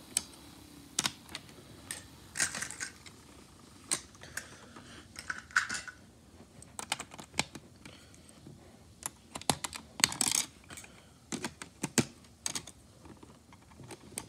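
Snap Circuits plastic parts being snapped onto and pulled off the base grid: irregular sharp clicks and snaps, with a few short rustling scrapes of handling.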